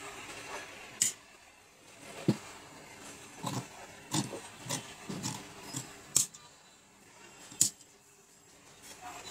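Large steel tailor's shears cutting through suiting fabric: an irregular string of sharp snips and crunches as the blades close, a few of them loud.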